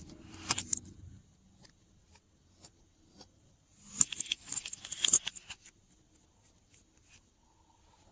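Small hard plastic pieces clicking and rattling against each other in two short bursts: one about half a second in and a longer one around four to five seconds in, with scattered light ticks between.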